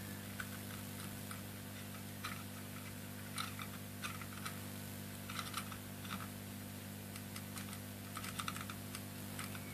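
Faint, scattered light clicks and taps as a soldering iron and solder are worked on a circuit-board pad, tinning it, over a steady low electrical hum. The clicks come about once a second, more closely bunched near the end.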